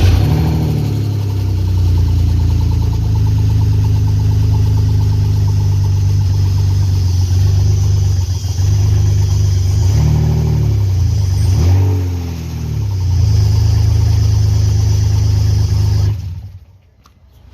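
BMW E46's engine running steadily, with a couple of short revs rising and falling about ten to thirteen seconds in. The sound cuts off suddenly near the end.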